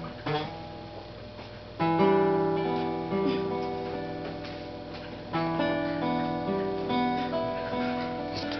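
Acoustic guitar music: strummed chords that ring on, with a new chord struck about two seconds in and another a little past five seconds.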